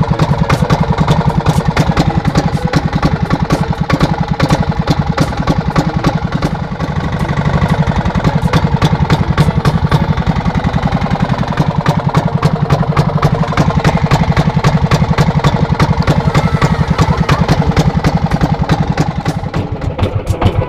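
Small boat engine running steadily at low revs, with an even, rapid chugging.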